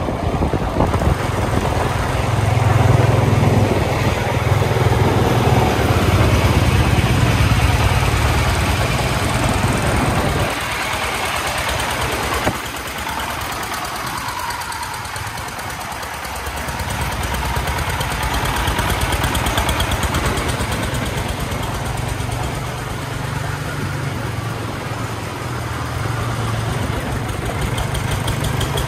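The 24 hp single-cylinder diesel engine of a three-wheeled công nông farm truck loaded with sand, running with a low, fast knocking chug as it drives. The low chug drops back about ten seconds in and comes up strong again a few seconds later.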